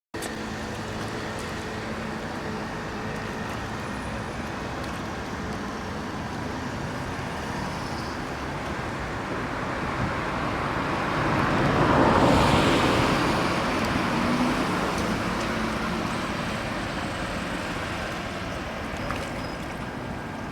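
Steady traffic noise, with a vehicle passing that swells to a peak about twelve seconds in and then fades.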